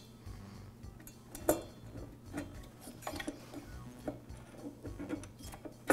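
Light, irregular metallic clicks and taps as a two-stroke engine cylinder is turned by hand on its piston and worked loose.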